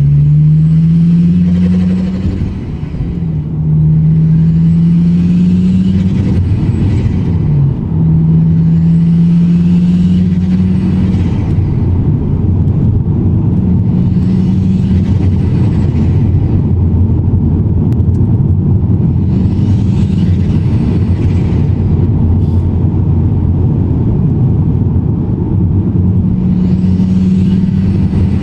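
Turbocharged Ford Focus ST five-cylinder with a hybrid turbo, accelerating repeatedly at low revs. About six times the turbo whistle rises as it spools and the engine note climbs, then falls away as the throttle lifts, with turbo flutter on lift-off.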